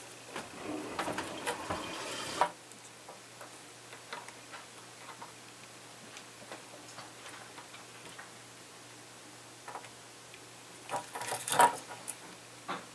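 A wooden stick scraping as it spreads flux along a row of solder joints on a circuit board, followed by faint, evenly spaced ticks while the header pins are soldered, and a short cluster of clicks and rubbing near the end.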